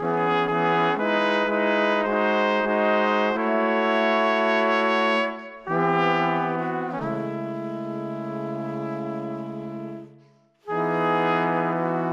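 Background music with a brass lead playing a melody of held notes, pausing briefly about five and a half and again about ten and a half seconds in.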